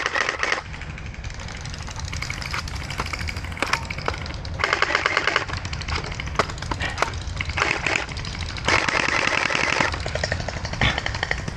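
Electric gel blasters firing in full-auto bursts: several short runs of rapid, machine-gun-like clatter, the longest lasting over a second, with scattered single shots and clicks between.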